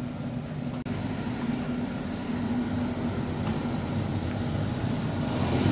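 Steady machinery and ventilation drone of an offshore oil and gas platform, with a low hum under it. There is a single click about a second in, and the drone grows louder near the end as a door opens onto the deck.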